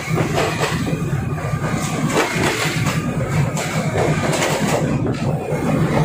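Diesel commuter railcar running along the line, heard from inside at an open window. A steady engine drone sits under the irregular rattle and clatter of the wheels and carriage.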